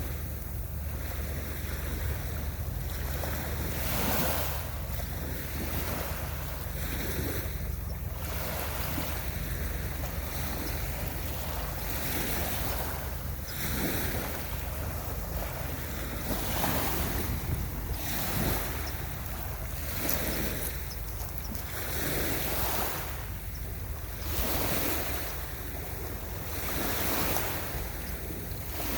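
Ocean waves washing onto a beach, the surf swelling and falling away every few seconds, with wind rumbling on the microphone.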